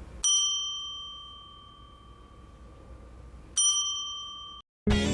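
Desk service bell struck twice. The first ring fades slowly over about three seconds; the second, about three and a half seconds in, is cut off after about a second.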